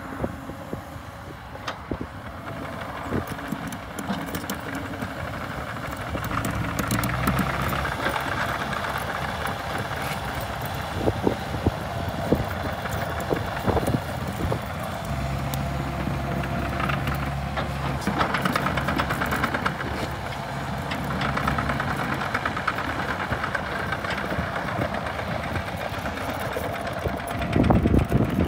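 Kubota KX080-4 mini excavator's diesel engine running while the machine works its boom and swings, the engine note getting louder under hydraulic load a few seconds in and again about halfway through, with a few sharp metallic clanks.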